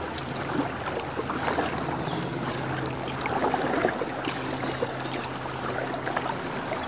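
Kayak paddle strokes, the blades dipping and water trickling off them, with small irregular splashes over a steady background hiss.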